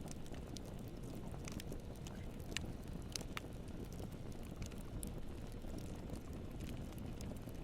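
Bonfire crackling: scattered sharp snaps and pops at irregular intervals over a steady low rush.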